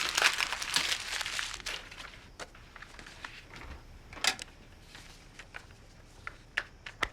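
A sheet of paper being crumpled up, crackling densely for about the first second and a half and then settling, followed by a few scattered light clicks.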